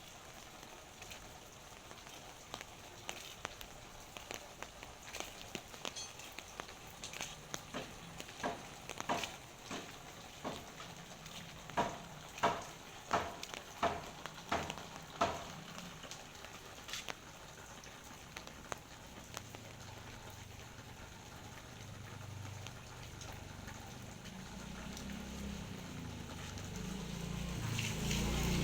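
Rain pattering steadily, with scattered drops ticking close by and a run of louder taps midway. A low engine rumble builds up toward the end as a vehicle approaches.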